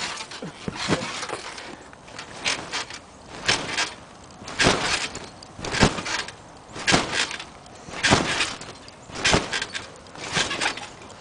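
Someone bouncing on a spring trampoline: each landing stretches the mat and springs, about ten bounces a little over a second apart, the first just after a backflip.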